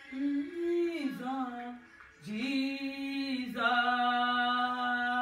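A woman singing a worship phrase unaccompanied: a short line with pitch slides, a brief breath, then one long held note.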